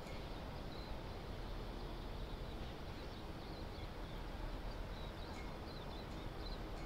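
Harbour ambience: a steady low rumble and hiss, with a few faint, short, high bird chirps scattered through, most of them in the second half.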